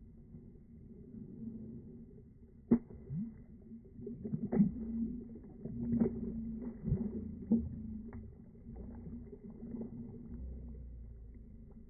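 A bass splashing down through an ice-fishing hole as it is released, the water and slush sloshing around the hole. Several sharp splashes come between about three and eight seconds in, over a low, slowed-down rumble as if played in slow motion.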